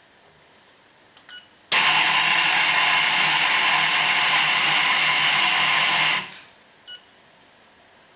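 etzMAX MEDIUM weight-based coffee grinder: a short beep, then the motor and burrs run with a steady high whine for about four and a half seconds before stopping and winding down, followed by a second short beep.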